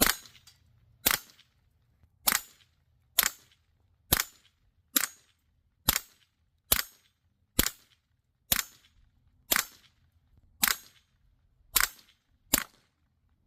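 Huben GK1 .22-calibre PCP air pistol firing fourteen shots in a steady string, about one a second, each a short sharp report.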